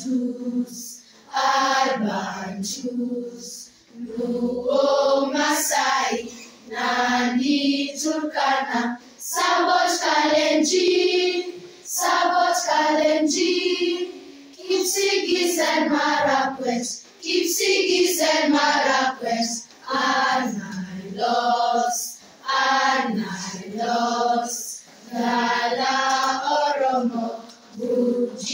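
A group of voices, children among them, singing together in short phrases with brief pauses between.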